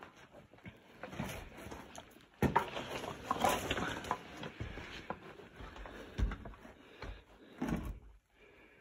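Footsteps crunching and scuffing over loose broken rock and gravel on a mine floor, with a few sharper knocks of stones, louder from about two and a half seconds in and stopping just before the end.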